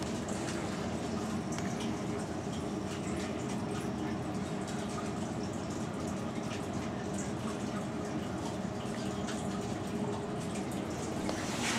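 Steady low hum with an even hiss and a few faint scattered ticks.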